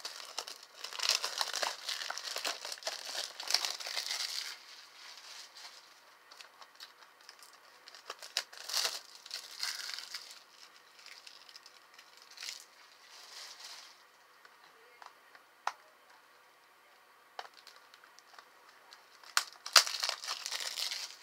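Plastic shrink wrap on a Blu-ray case crinkling and crackling as fingers pick at it and peel it off, in spells: a long stretch at the start, another around the middle, and a burst near the end, with a few sharp clicks in between.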